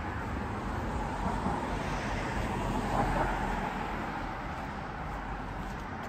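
Road traffic: a car passing on the road alongside, swelling about two to three seconds in and fading away, over a steady low rumble of wind on the microphone.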